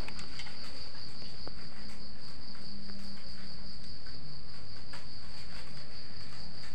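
Steady, unbroken high-pitched trill of crickets, over a low hum.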